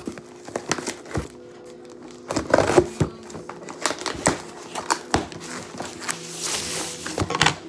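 Cardboard shipping box being handled and opened on a countertop: a run of knocks, scrapes and taps, with plastic packaging crinkling about six seconds in.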